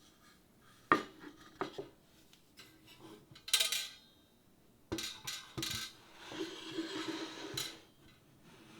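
Dishes and metal utensils being handled: a couple of sharp knocks, a louder clatter about three and a half seconds in, more clinks, then a scraping rustle near the end.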